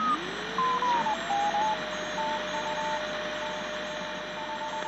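Shortwave radio static hiss, with a heterodyne whistle that glides up in pitch and settles into a steady tone about a second in, while a second, higher tone keys Morse code in short and long beeps.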